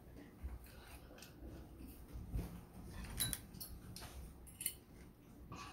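A person chewing food close to the microphone, with scattered wet clicks and smacks, the sharpest two coming a little past three seconds and again about a second later.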